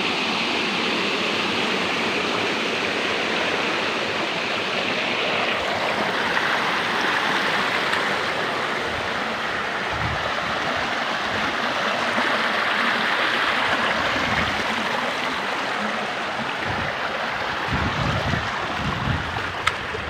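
Waterfall: a steady, even rush of falling water, with a few brief low thumps in the second half.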